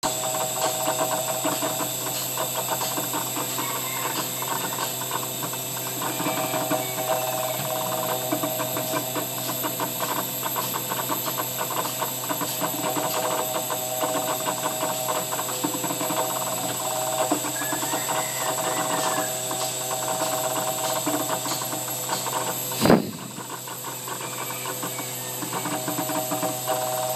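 CNC router running a 3D carving job: a steady high spindle whine and cutting noise, with stepper-motor tones that come and go as the axes move. A single sharp knock comes near the end.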